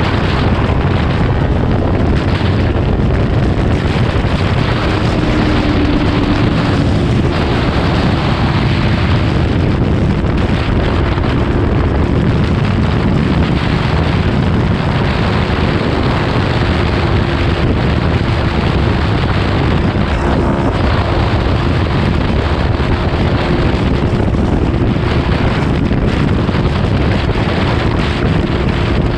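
Heavy wind buffeting the microphone at highway speed, over the steady drone of a Kawasaki Ninja 400's parallel-twin engine cruising at an even pitch.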